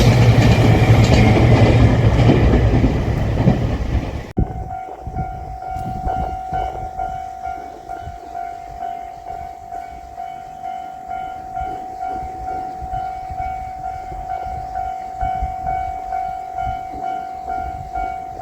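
JR Shikoku 2700 series diesel express railcar passing over a level crossing: loud engine and wheel rumble that stops abruptly about four seconds in. After that the crossing's electronic warning bell rings steadily in a rhythmic pulse over a fainter rumble.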